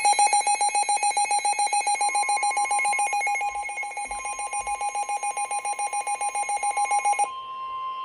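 A weather radio's built-in alert alarm beeping rapidly and evenly, signalling an incoming warning. About seven seconds in it cuts off and the steady NOAA Weather Radio warning alarm tone takes over.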